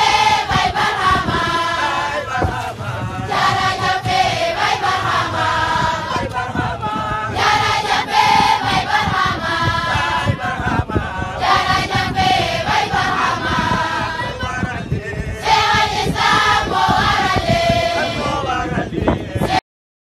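A group of voices chanting a repeated refrain in unison, each phrase about four seconds long. It cuts off abruptly near the end.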